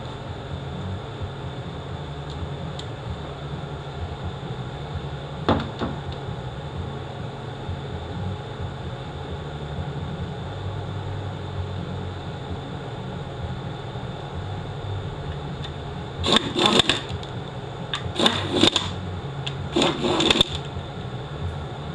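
Steady low shop hum, with a single sharp metal click about five seconds in and three short bursts of quick metallic clicking near the end, from hand tools tightening the bolts of a transmission's neutral switch and bracket.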